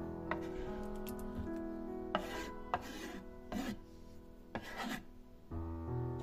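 Kitchen knife scraping chopped tomatoes off a wooden cutting board into a glass bowl: several short, rasping scrapes, over soft background music.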